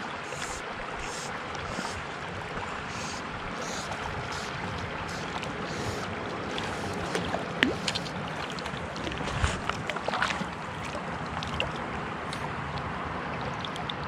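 A hooked brook trout splashing at the surface of shallow water as it is brought in to shore, with sharp splashes about halfway through and again around ten seconds in, over a steady rushing background noise.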